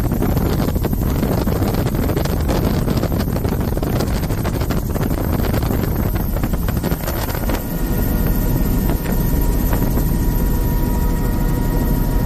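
Helicopter in flight heard from inside an open-door cabin: loud, steady rotor and engine noise with wind rushing at the microphone. About seven and a half seconds in it settles into a smoother drone with a steady high whine.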